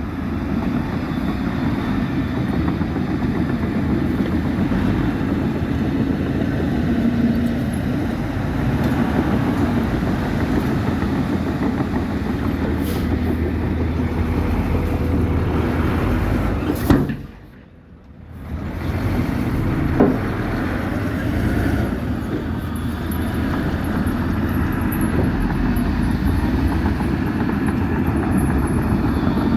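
Heavy diesel earthmoving machinery running steadily with a low rumble. About two-thirds of the way through the sound drops out for a second or so, with sharp knocks as it cuts out and again shortly after it returns.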